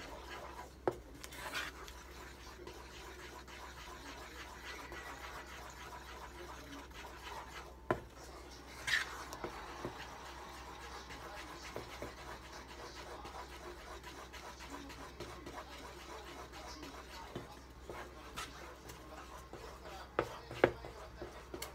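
Wooden spatula stirring thick pancake batter in a metal saucepan: a soft, steady scraping, with a few sharp knocks of the spatula against the pan.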